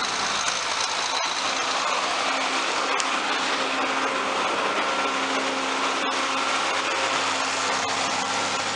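John Deere 4450 tractor's six-cylinder diesel engine running steadily, with a faint steady whine over the engine noise.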